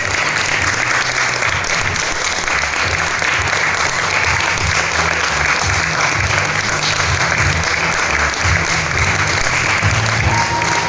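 Spectator crowd applauding steadily, with a low pulsing music beat underneath.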